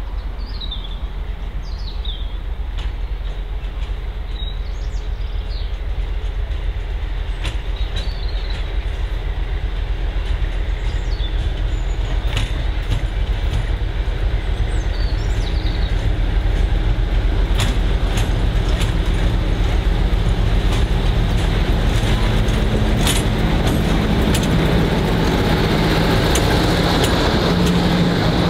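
A diesel train running on the line, its low engine rumble growing steadily louder as it nears, with a steady engine note coming in over the last few seconds and scattered sharp clicks. Birds chirp in the first half.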